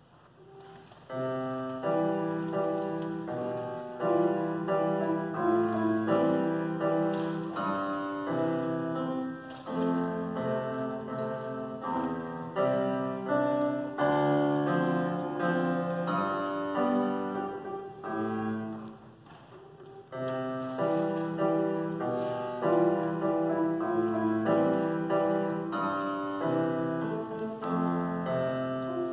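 Grand piano played solo: the piece begins about a second in and runs on as a steady stream of notes, with a short break about two-thirds of the way through before the playing resumes.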